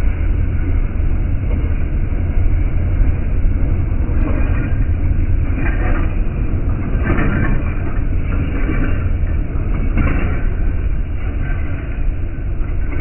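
Train passing on the line: a steady heavy rumble with louder pulses about every second and a half through the middle.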